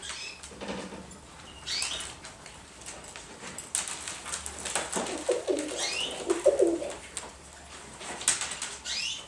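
Domestic pigeons cooing in a loft, with low phrases around the middle. Short high chirps and soft clicks and scuffles run among them.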